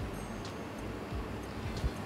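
Faint background music over a low, even room noise, with a couple of light clicks.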